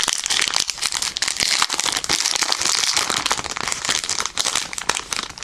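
Foil Yu-Gi-Oh booster pack wrapper crinkling steadily as it is handled and opened, the crackling dying away near the end.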